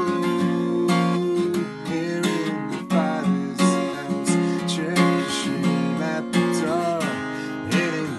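A man singing a worship song in drawn-out 'ooh' phrases over a strummed acoustic guitar with a steady rhythm.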